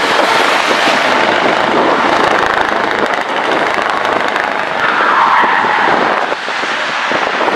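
Scania V8 tanker truck driving past on a wet motorway: a steady, loud rush of engine and tyre spray, with a brighter engine note swelling about five seconds in.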